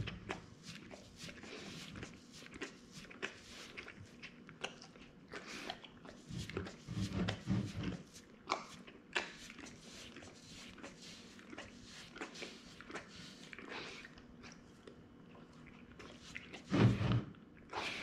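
American Akita licking and lapping at a cutting board to clean off the last traces of a cheeseburger: quick, irregular wet tongue clicks, several a second. A louder low bump or snort stands out about seven seconds in and again, loudest, near the end.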